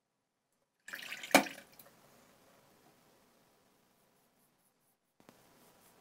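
A brief splash of water with one sharp knock about a second in, fading out. Near the end, the faint scrape of a double-edge safety razor's strokes over lathered stubble.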